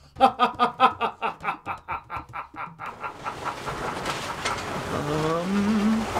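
A man's drawn-out villainous laugh, a rapid 'ha-ha-ha' of about five pulses a second that fades away over about three seconds. A steady hiss follows, with a short rising vocal sound near the end.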